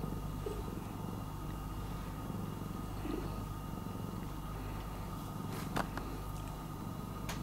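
Domestic cat purring steadily while in a silvervine (matatabi) high, with a couple of light clicks near the end.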